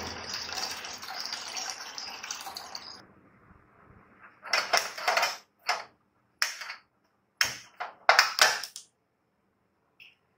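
Water from a water-purifier tap running into a steel pot, fading out about three seconds in. Then comes a series of sharp clicks and knocks as the gas stove is worked and lit.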